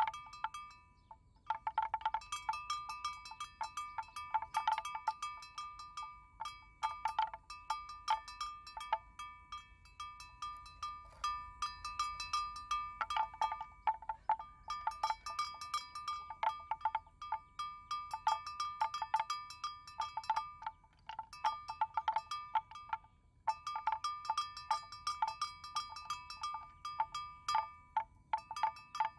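Bells worn by grazing water buffaloes, clanking irregularly over and over as the animals move, each stroke ringing with a clear tone, with a few brief pauses.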